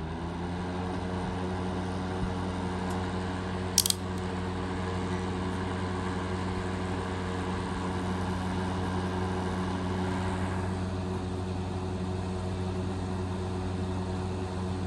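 Patton PUH680 electric milkhouse heater running after its thermostat has switched it back on: a steady, even hum from the fan motor. A short sharp click about four seconds in.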